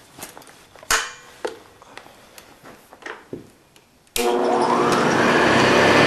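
A few knocks and clicks as the mid-1950s Hoover Model 634 upright vacuum cleaner is handled. About four seconds in, its motor switches on suddenly and runs up to speed: a rising whine over a steady rush of air.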